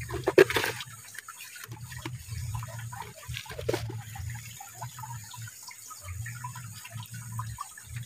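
Stream water flowing and gurgling into a pool, with scattered small drips and a few short knocks.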